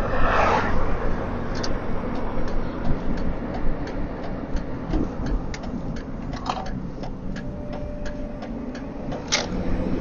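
Steady low vehicle rumble with an even ticking running through most of it, about three ticks a second. A short breathy hiss comes at the very start.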